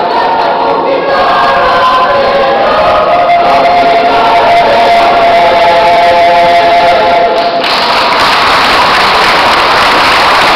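School choir singing, closing on a long held chord. About seven and a half seconds in, the singing stops and the audience breaks into applause.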